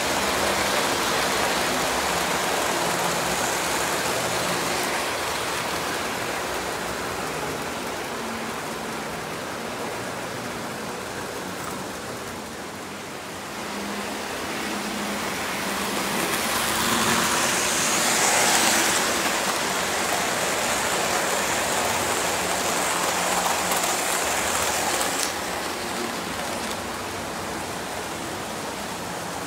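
Several Lionel O-gauge model trains running on three-rail track: a steady rumble and clatter of wheels and motors. It swells louder past halfway as a train passes close, then drops off suddenly near the end.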